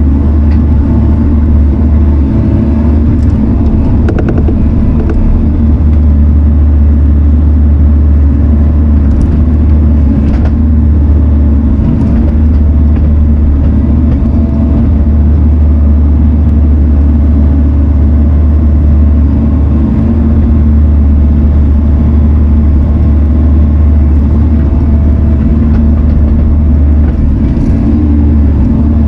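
Diesel engine of a piece of heavy equipment running steadily under work, with a few faint knocks as it moves logs and railroad ties.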